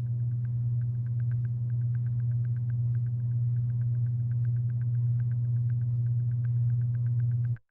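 A steady low hum from the soundtrack with a fast, even ticking over it, about six or seven ticks a second. Both cut off suddenly near the end.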